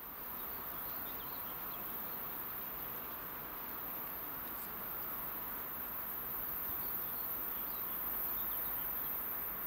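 Steady high-pitched insect buzzing over an even low rumble from a distant approaching diesel train, with a few faint bird chirps; the rumble grows slightly louder toward the end.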